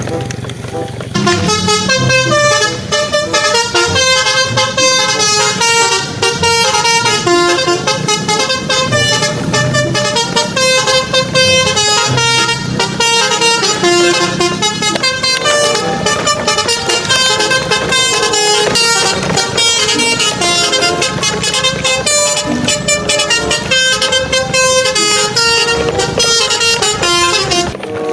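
Upbeat electronic background music with a quick, steady beat and a fast melody of short notes, starting about a second in after a brief low hum.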